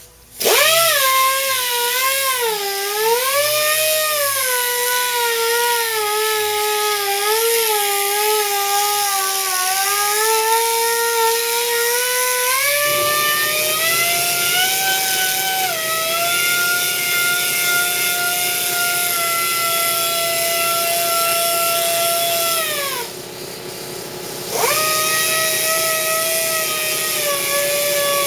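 Small pneumatic right-angle polisher with a foam pad buffing off dry polish residue: a high air-motor whine with hiss, its pitch sagging and wavering as the pad is pressed onto the panel. Near the end it stops briefly, then spins back up with a rising whine.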